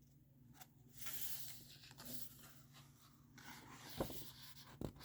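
Paper pages of a cookbook being turned and rustled, with a couple of soft handling knocks near the end, over a faint steady hum.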